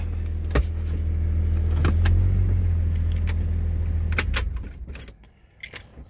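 Jeep Grand Cherokee ZJ engine idling, heard from inside the cabin, with a few light clicks. The engine dies away about four and a half seconds in as it is switched off.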